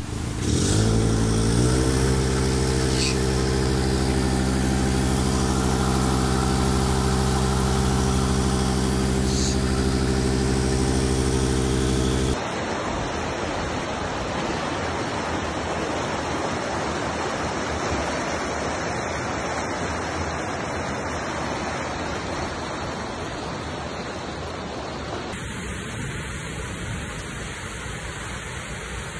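An engine running steadily, its pitch rising briefly at the start. About twelve seconds in it cuts to a steady rushing of water.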